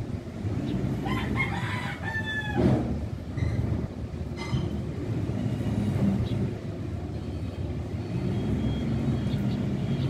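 A long crowing call, like a rooster's, about a second in, lasting nearly two seconds and falling away at the end, with a shorter call about four and a half seconds in, over a steady low rumble.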